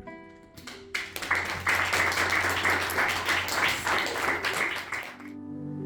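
Audience applauding for about four seconds, ending as sustained instrumental music begins near the end.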